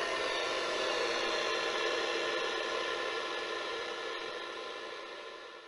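Steady hiss and static with a few faint steady hum tones, slowly fading out over the last couple of seconds.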